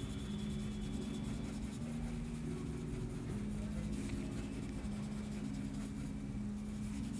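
Soft background music of held low notes that change about once a second, over the faint scratching of a blending tool rubbing over graphite shading on drawing paper.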